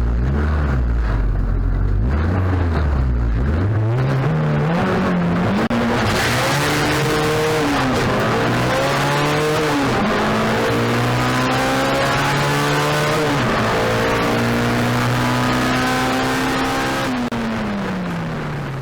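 Turbocharged Honda Civic D16 engine accelerating hard from low revs through the gears, its pitch climbing and then dropping sharply at three shifts. It holds high revs and then falls away as the throttle is lifted near the end.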